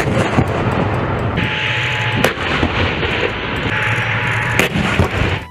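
Main battle tank running across open ground: a steady heavy engine rumble with loud, sharp shot-like bangs, the strongest about two seconds in and near the end.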